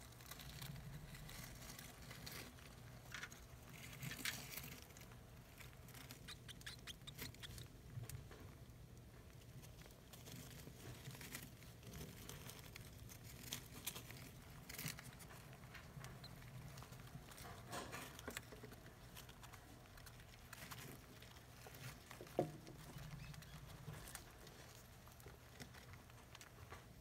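Faint rustling and scratching of shredded newspaper bedding as African soft-furred rats shift about in their nest, with scattered small clicks over a steady low hum. One sharper click comes about twenty-two seconds in.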